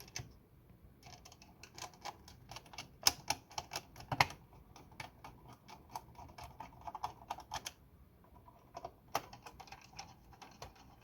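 Plastic shell of a Trimline wall telephone being fitted back onto its base: a run of irregular light clicks, taps and rattles of handled plastic parts.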